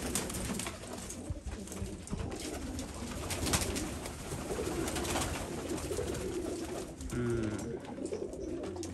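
Domestic pigeons cooing, with a run of wing flaps and feather rustling through the first half as a pigeon is caught from a wire cage and held in the hand. Low, wavering coos stand out more clearly near the end.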